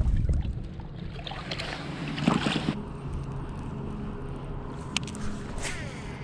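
Released bass splashing back into the lake about two seconds in, over wind on the microphone. Near the end, a click and a brief whir from the baitcasting reel as the rod is cast.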